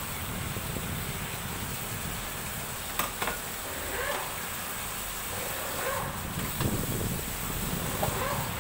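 Running tap water at a kitchen sink, a steady rush, with a sharp clink about three seconds in and lighter knocks of dishes and utensils being handled.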